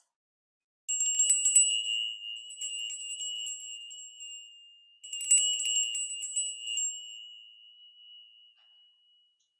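Small handheld turtle chime shaken twice, about four seconds apart. Each time it gives a bright jingle of quick tinkling strikes over a high ringing tone that fades slowly, the last ring dying out near the end. The chime marks the start of the sound bath.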